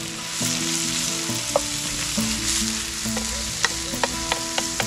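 Chopped vegetables sizzling as they fry in a pan, stirred with a utensil that clicks against the pan several times, more often in the second half.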